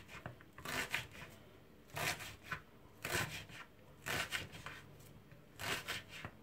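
Kitchen knife chopping a shallot on a wooden cutting board: five short bursts of quick strokes, with brief pauses between them.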